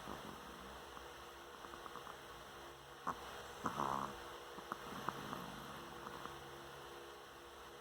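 A sleeping pet snoring softly, one snore clearest about four seconds in, over a steady faint hum.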